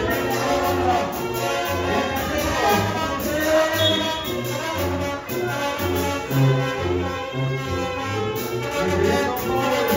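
Latin music with brass instruments over a steady bass beat.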